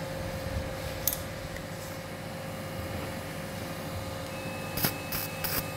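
Steady operating-room equipment hum; about four seconds in, an electrosurgical generator's steady high activation tone starts, joined near the end by a run of sharp crackles from the electrocautery pencil on tissue.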